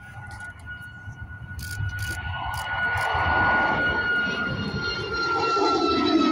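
Twin-engine Ryanair jet airliner's engines at takeoff power as it lifts off and climbs past. The rumble grows louder from about two seconds in, over a thin engine whine that slowly falls in pitch.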